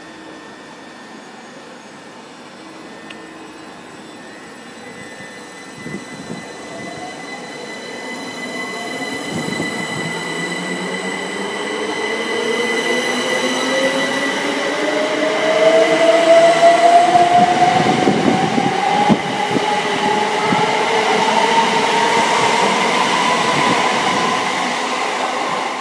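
A Class 357 Electrostar electric multiple unit pulls away and accelerates past. Its traction motors whine in several tones that climb steadily in pitch as the train gathers speed, over a steady high tone. The sound grows louder through the middle and late part as the train passes.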